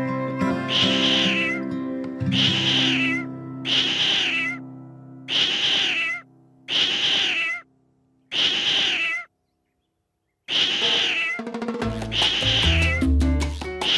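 A cat meowing over and over: about nine drawn-out meows, each roughly a second long, over background music. Everything falls silent for about a second just after the middle, then the music comes back with a steady beat near the end.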